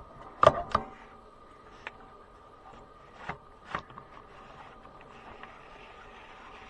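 Hand tools and loose parts knocking and clanking during radiator disassembly: two sharp knocks close together about half a second in, then a few lighter ones, over a faint steady hum.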